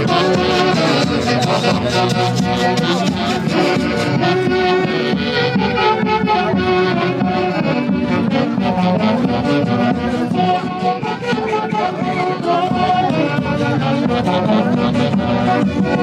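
Andean folk orchestra with saxophones playing a traditional dance tune over a steady beat.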